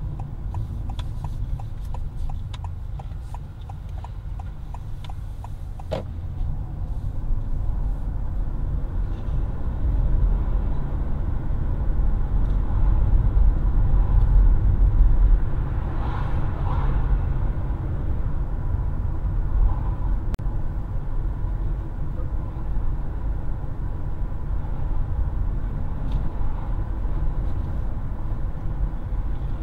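Road and engine noise heard inside a car's cabin as it pulls away from a roundabout and picks up to about 20 mph. It is a steady low rumble that grows louder as the car gathers speed, then evens out. There are a few light clicks in the first seconds.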